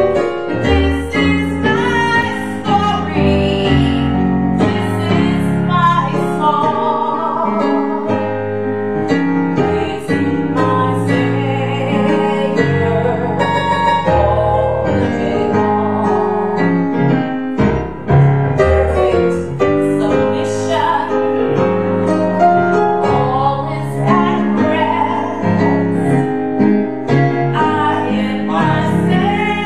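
A woman singing a worship song into a microphone, holding long notes with vibrato, accompanied by piano chords on an electronic keyboard.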